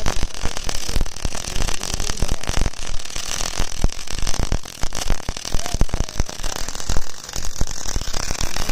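MIG welding arc crackling, a dense, rapid, irregular stream of sharp crackles and hiss as the torch lays a bead from a travelling welding carriage.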